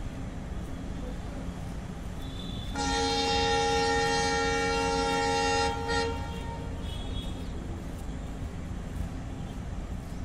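A train horn sounds one long blast of about three seconds, a few seconds in, followed right after by a short toot, over the steady low rumble of ICF passenger coaches rolling past.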